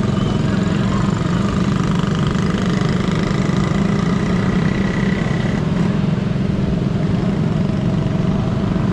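Steady motor-vehicle noise: motorcycle engines running alongside a moving pack of bicycles, under a constant rumble of wind on the microphone of a camera riding with the pack.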